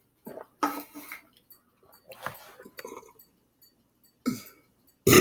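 A man making short throat noises, like gulps, small coughs or throat-clearing, as he works up a belch. A loud belch breaks out right at the end.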